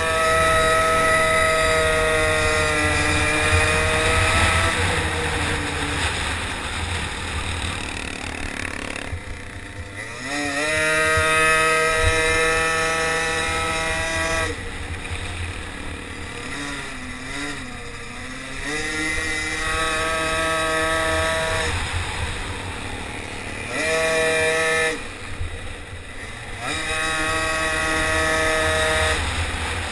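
A racing motorized bicycle's small single-cylinder engine heard on board, revving high and then falling away several times as the rider comes off the throttle, over a steady low rumble.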